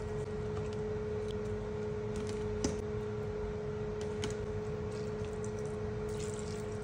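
Kitchen cooking sounds: a steady electrical hum with a few light clicks and knocks of a utensil against cookware, the sharpest about two and a half seconds in.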